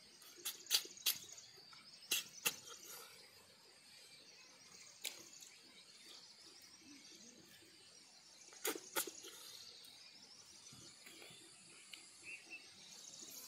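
Close-up eating sounds from a person eating by hand: sharp mouth smacks and clicks in short clusters, a few in the first seconds, one near the middle and a quick pair later. Under them runs a faint steady high drone of insects.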